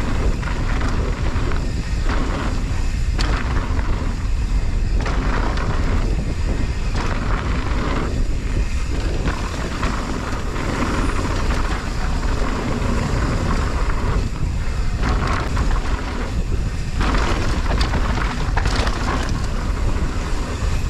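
Mountain bike riding a dirt trail: a steady wind rumble on the microphone under a rush of tyre and riding noise that swells and drops every second or so.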